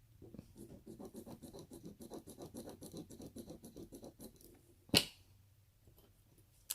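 Small, fast scratching strokes, about six a second for some four seconds, as the inside of a sterling silver jewelry clasp is rubbed clean. A sharp click about five seconds in, and a fainter one near the end.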